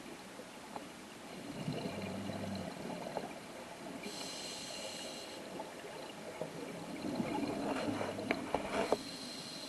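Scuba diver breathing through a demand regulator underwater: two exhalations of rumbling, bubbling air, each followed by the hiss of an inhalation.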